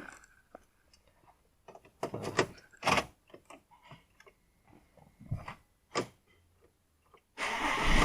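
Scattered small clicks and knocks, then near the end a Volkswagen Touareg engine starts and runs steadily.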